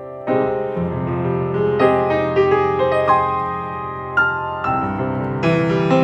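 Steinway grand piano played solo: a slow, gentle passage of melody notes over sustained bass chords. A louder chord is struck near the end.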